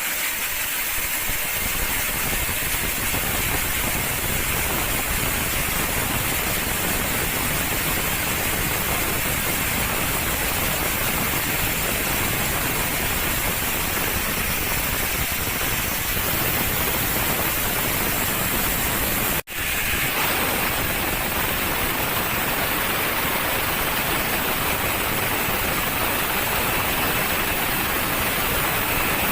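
Sawmill machinery running steadily, a dense even noise without pauses, broken once by a momentary dropout about two-thirds of the way through.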